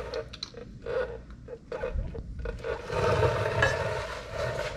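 Scraping and rubbing of a water-intake scoop being fitted against an outboard motor's lower unit. It comes in short scrapes at first, then a longer, louder rasp in the second half.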